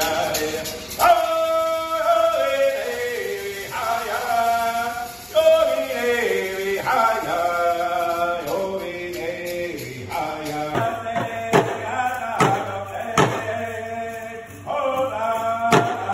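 Powwow-style song: male voices chanting in high phrases that step downward, joined by a steady drumbeat about eleven seconds in.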